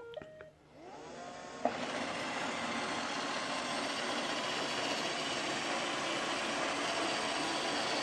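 Roomba 520 robot vacuum starting up after a few short beeps: its motors spin up with a rising whine over about a second, then its vacuum and brushes run steadily as it seeks its dock.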